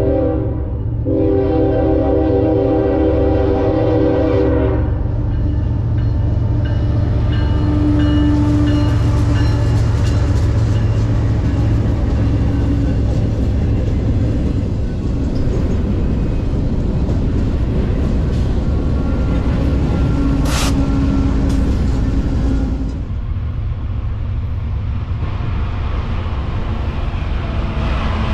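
Freight locomotive air horn sounding a multi-note chord: one blast breaks off just after the start, and a second, longer blast of about four seconds follows. Then comes the steady rumble and wheel noise of a double-stack intermodal freight train rolling past. Near the end the rumble of another approaching train builds.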